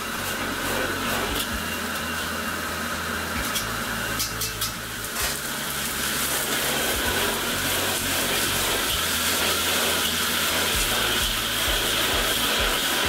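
Water hissing and steaming in a hot wok as it is ladled in and swirled with a wire strainer, over the steady rush of a gas wok burner. A few sharp metal clinks from the ladle and strainer come in the first five seconds, and the hiss grows stronger about six seconds in.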